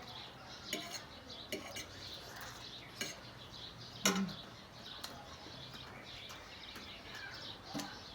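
Cutlery clicking against a plate during a meal: a handful of short sharp clicks, the loudest about four seconds in. Faint bird chirps run behind them.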